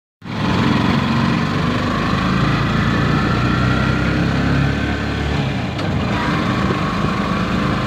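Motorcycle engine of a passenger tricycle running under way, cutting in abruptly just after the start. A steady whine over the engine note dips briefly about six seconds in, then climbs again.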